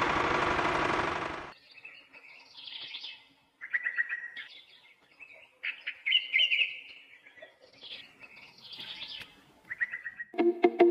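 A loud rushing hiss for about the first second and a half, then wild birds chirping and trilling on and off. Music comes in near the end.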